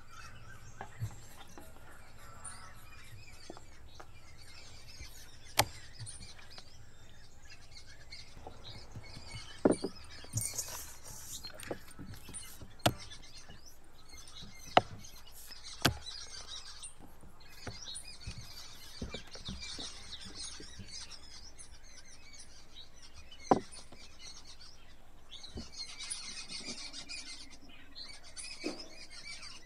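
Small birds chirping and chattering steadily in the background, with a few sharp clicks and knocks standing out now and then.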